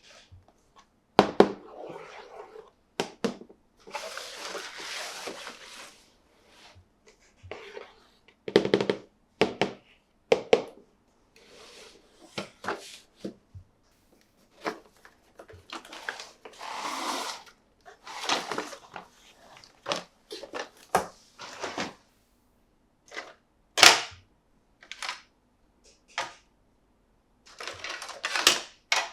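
Plastic toy playset pieces and packaging being handled: an irregular string of sharp clicks and knocks, with stretches of crinkly rustling, about two seconds long from about four seconds in and again around seventeen seconds.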